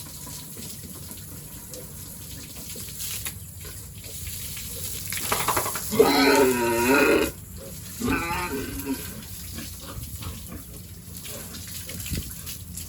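A pig squealing: one loud, wavering call lasting about a second and a half near the middle, then a shorter second call about a second later.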